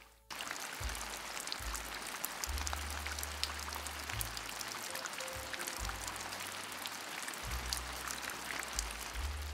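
Background music with deep bass notes, over the hiss and patter of rain with many small drops ticking.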